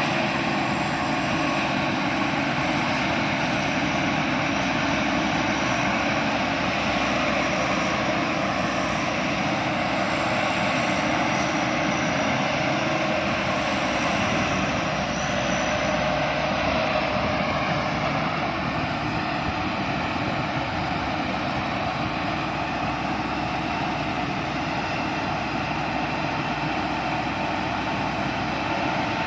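Rice combine harvester running steadily in the field, its engine and machinery making a dense, even mechanical drone.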